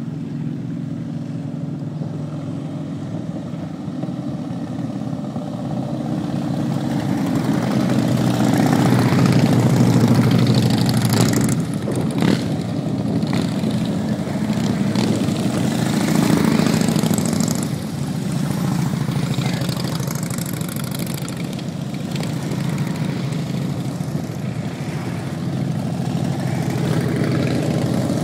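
A procession of cruiser motorcycles riding past one after another, the engine sound swelling as riders pass close, loudest about ten seconds in and again around sixteen seconds.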